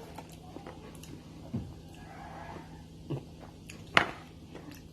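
Quiet eating sounds from someone snacking on crackers and coffee: a few soft clicks and knocks, with one sharper click about four seconds in.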